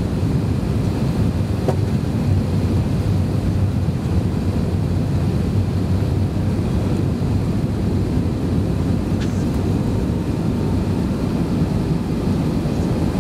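Airliner cabin noise during the landing roll: a steady, deep rumble of the jet's engines and airflow, with the wheels rolling on the runway.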